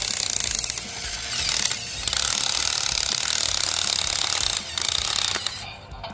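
Battery-powered motor and plastic gears of a toy Road Rippers Polaris RZR buggy whirring steadily, with two short breaks, about two seconds in and just under five seconds in. It stops near the end.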